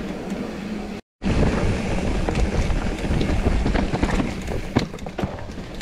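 Mountain bike rolling fast over a dirt trail: tyre rumble with knocks and rattles from the bike over bumps, and wind buffeting the action camera's microphone. The sound drops out completely for a moment about a second in, then resumes.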